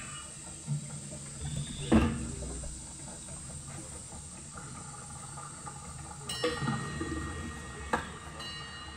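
Steady hiss broken by metallic knocks and clanks: one heavy knock about two seconds in, a ringing clatter past six seconds, and another sharp knock near the end.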